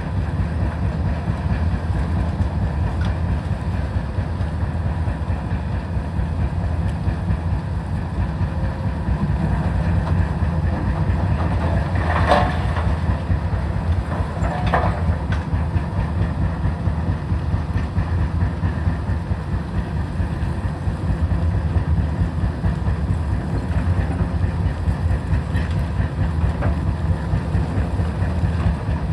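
Heavy diesel demolition machinery running steadily with a low rumble, with two metallic clanks, about 12 and 15 seconds in.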